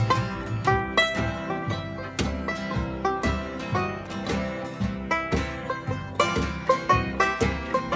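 Acoustic string-band jam: a banjo picking quick plucked notes over strummed acoustic guitars, in a steady bluegrass-style groove.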